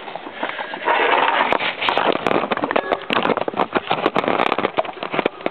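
Dense crackling and rustling with many small clicks, busiest from about one second in until near the end: handling noise from a camera being moved about under a vehicle.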